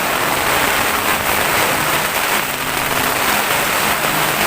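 Heavy rain pouring down steadily during a storm, a dense even hiss.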